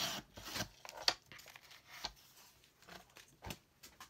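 Paper handled and cut on a paper trimmer: a rustling scrape of paper in the first second or so, then a few light clicks and taps of the paper and trimmer.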